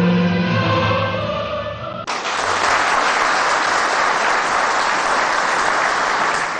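A national anthem sung by a choir, ending abruptly about two seconds in, then a hall audience applauding.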